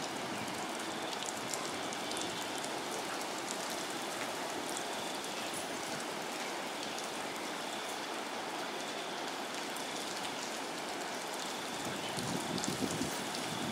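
Steady rain falling on a river surface, an even hiss of drops, turning louder and more uneven near the end.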